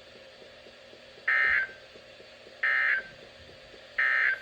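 NOAA Weather Radio SAME end-of-message data bursts: three short, buzzy bursts of digital tones about 1.3 seconds apart, marking the close of the station's required weekly test.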